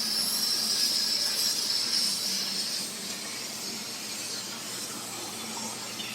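CNC laser cutter hissing as it cuts sheet metal, with a high-pitched hiss for about the first three seconds that then drops to a softer, steady hiss.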